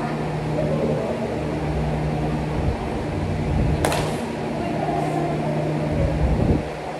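A machine running with a steady hum. There is a sharp click about four seconds in and a low thump near the end.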